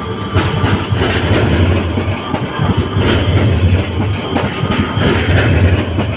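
Škoda 13T low-floor tram passing close by, its wheels rumbling and clattering on the rails with a string of short clicks as it goes.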